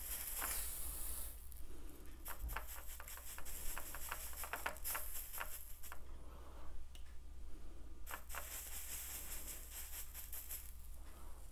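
Small brush dabbing and stroking flux onto a copper ring band on a soldering block: faint, irregular clicks and scratchy brushing.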